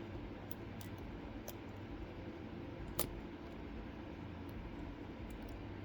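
Faint, sharp metal clicks of a lock pick lifting and setting pins in an Elzett Tutius lock cylinder, a handful of scattered ticks with one sharper click about three seconds in, over a low steady room hum.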